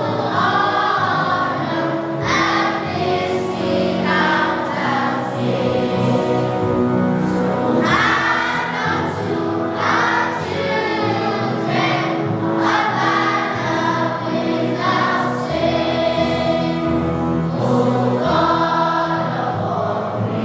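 A choir singing in phrases over a steady instrumental accompaniment.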